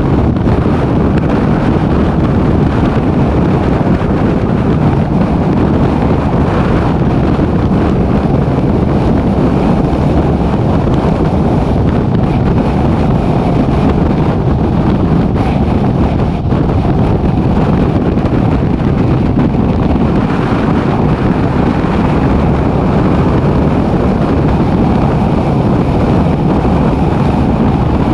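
Steady wind rush on a microphone mounted outside a fire truck, over engine and tyre noise as the truck drives at highway speed.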